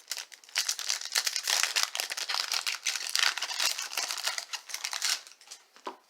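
Wrapper of a baseball card pack crinkling and tearing as it is opened, a dense crackle that runs for about four and a half seconds and stops near the end.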